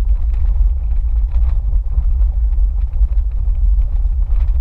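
Steady low rumble of an off-road vehicle driving slowly along a wet, rocky dirt track.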